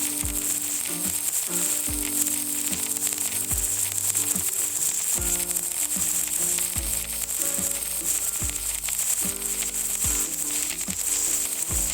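Welding arc crackling and sizzling steadily, under background music with a beat.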